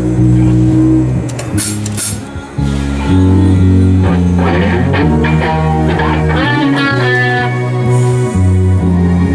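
A band rehearsing: electric guitar playing over held low notes that change step by step about once a second, with a few sharp hits about one and a half to two seconds in.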